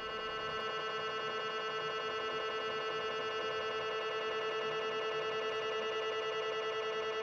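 MRI scanner running an imaging sequence: a steady electronic buzzing tone with a fast, even flutter.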